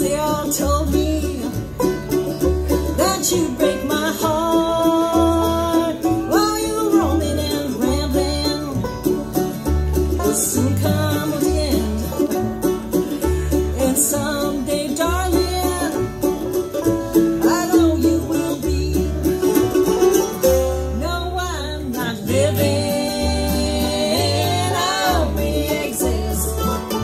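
Live bluegrass band playing an instrumental break: banjo, mandolin and acoustic guitar over an upright bass plucking a steady two-beat.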